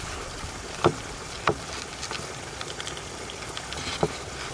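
Kitchen knife cutting slowly through the crisp fried breadcrumb crust of a chicken Kiev cutlet on a wooden board. Faint crackling runs through the cut, with three sharp cracks: one about a second in, one half a second later, and the last near the end as the blade cuts through.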